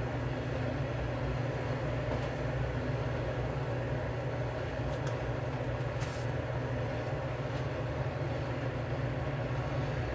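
Gas stove burner running under a lidded aluminium saucepan of water heating toward the boil: a steady low rumble with a few faint ticks about halfway through.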